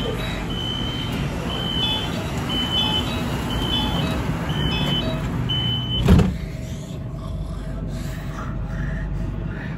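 Shenzhen Metro Line 11 train's door-closing warning: six short high beeps, about one a second, over the train's steady running noise. About six seconds in the doors shut with a loud thud, leaving a quieter steady hum.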